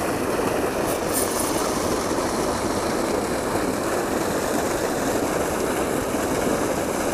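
Steady rushing of water pouring from a spillway outflow pipe into a creek pool.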